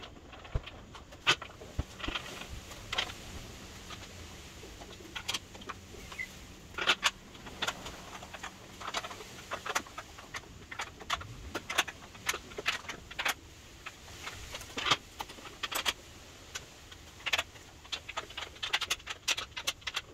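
Irregular metallic clicks and clinks of small hardware and tools being handled at an aluminium-extrusion table frame, coming in scattered clusters.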